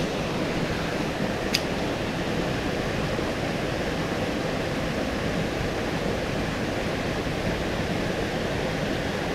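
Steady rush of flowing stream water, with one short sharp click about a second and a half in.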